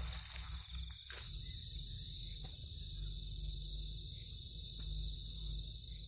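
Night insects trilling: one steady high trill throughout, joined about a second in by a higher trill that pulses on and off, over a low rumble. Brief rustling in the first second.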